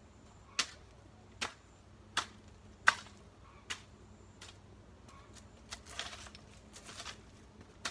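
Sharp clicks, six in a row about one every three-quarters of a second, then a short rustling scuffle and one more click near the end.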